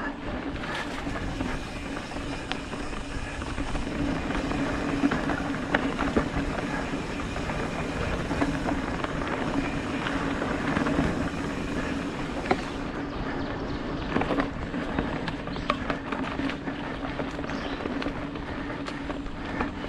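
Mountain bike rolling fast along a dirt singletrack: a steady rumble of tyres and drivetrain with the bike rattling, and sharp knocks now and then as it goes over bumps.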